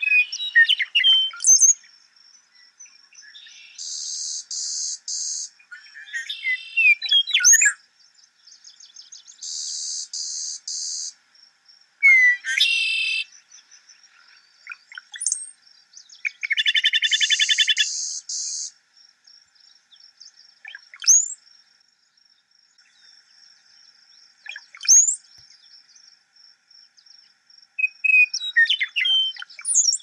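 Clay-colored sparrow singing its buzzy song three times, each a series of three flat, mechanical buzzes on one high pitch. Between the songs other birds give short gliding whistles and chips, over a faint steady high insect tone.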